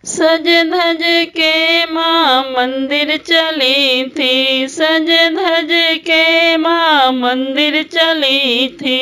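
A woman singing a Hindu devotional bhajan to the Mother Goddess, one voice in long held phrases that bend in pitch, with short breaths between them.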